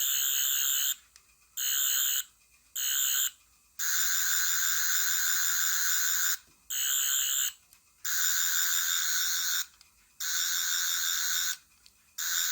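Toy Doctor Who sonic screwdriver sounding its electronic effect: a high, pulsing warble that switches on and off in about eight bursts of varying length as the button is pressed and released.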